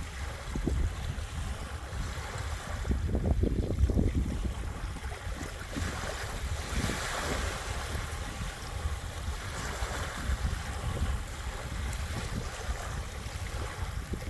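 Small waves washing onto a beach shore, one wash swelling a little past halfway through, with wind buffeting the microphone as a low rumble throughout.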